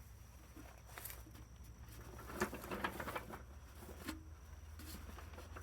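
Faint scattered clicks and rustling of hands working under a tractor's lifted dash panel, over a low steady hum.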